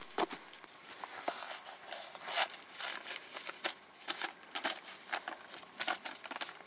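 Paper rustling and crinkling in quick, irregular crackles as a sheet of paper map is unfolded and handled.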